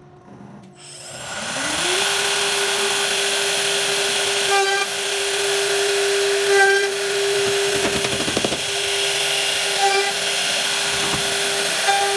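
Electric woodworking power tool starting up: its motor speeds up a second or two in, then runs at a steady high whine over a loud hiss.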